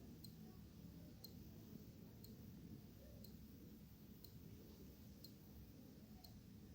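Wall clock ticking faintly, one tick a second, over a low room rumble.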